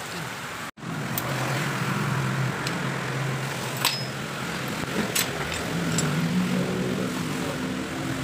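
A handful of light metallic clicks and taps, spread through, from fingers handling the delivery valve holders on top of a Denso inline diesel injection pump. Under them runs a steady low background hum.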